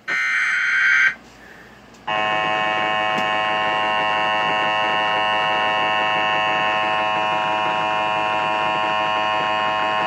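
An Emergency Alert System (EAS) broadcast through a TV speaker. A short burst of the digital SAME header data tones ends about a second in. After a brief pause, the EAS attention signal starts about two seconds in: a loud, steady two-tone alert tone that cuts off abruptly at the end. It announces that a severe thunderstorm warning message follows.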